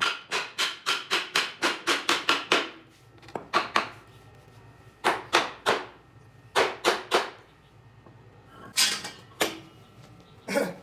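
Hammer blows: a fast run of about a dozen strikes, roughly five a second, then short groups of two or three strikes with pauses between them.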